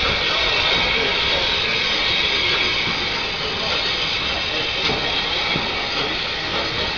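Small 1909 saddle-tank industrial steam locomotive drawing its train away along the track, with a steady hiss of steam.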